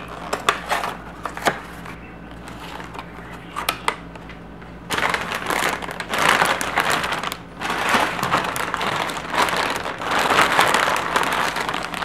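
Plastic food packaging being handled: a few clicks and taps on a clear plastic clamshell container, then, from about five seconds in, near-continuous crinkling of plastic produce bags.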